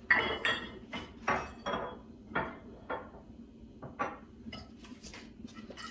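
Dishes and decor pieces being handled: a dozen or so separate clinks and knocks, some with a brief ring, growing sparser near the end.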